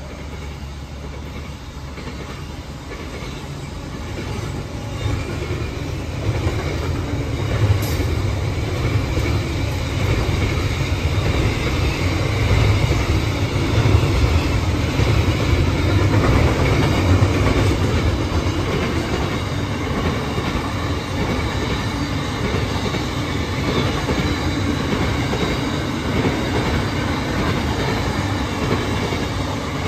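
Intermodal container freight train wagons rolling past: a steady rumble of wheels on rail that grows louder about a third of the way in and stays strong.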